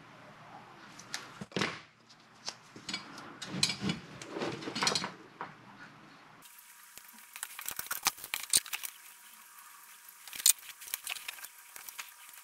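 Handling sounds of hand tools, wires and a small circuit board at a workbench: light clicks, taps and rustles, with a denser run of sharp clicks in the second half as side cutters come into use.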